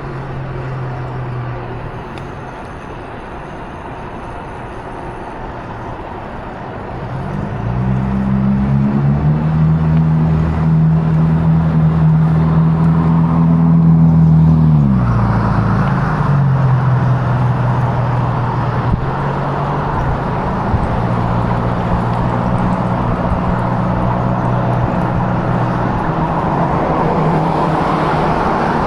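A vehicle engine running while under way, over steady road and wind noise. About seven seconds in the revs climb and hold, then drop sharply around fifteen seconds in and settle at a steady lower pitch.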